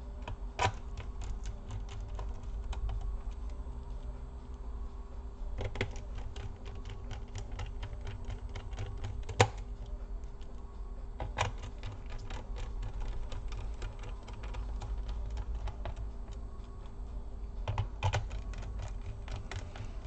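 Small screwdriver driving screws back into the plastic bottom case of a Dell Vostro 15 3568 laptop: runs of quick, light clicks, with a few sharper knocks spread through.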